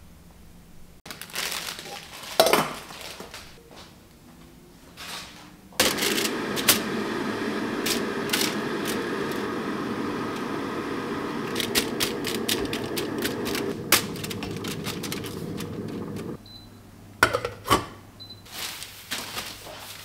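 Kitchen clatter of dishes and pots being handled. A steady rushing noise with clinks in it runs for about ten seconds in the middle, then cuts off suddenly.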